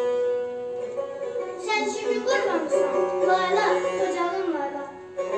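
Slow melody on a kamancha, the Azerbaijani bowed spike fiddle, opening with a long held note and going on with sliding notes.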